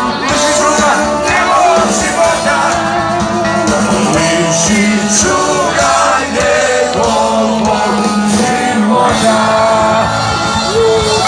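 Live rock music: a rock band playing with loud singing over it.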